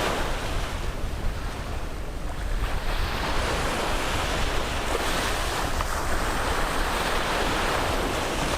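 Sea waves breaking and washing on a beach, a steady surf wash that swells and eases, with wind rumbling on the microphone.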